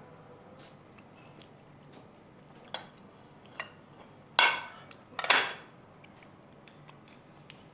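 Eating utensils knocking against dishes: two light clicks, then two louder, briefly ringing clinks about a second apart near the middle.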